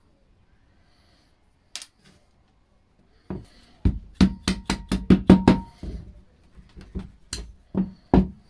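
Hammer striking the end of a 4-inch plastic soil-pipe bend fitted with a metal flange: a quick run of about nine blows, then four slower ones. A single sharp click comes about two seconds in.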